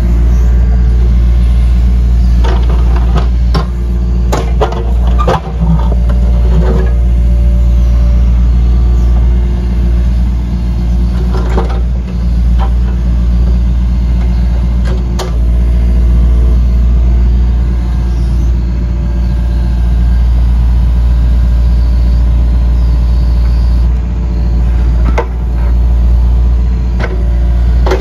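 Yanmar mini excavator's diesel engine running at a steady speed while the machine works. Sharp knocks and clanks of metal and rock come in a cluster a few seconds in and again singly now and then.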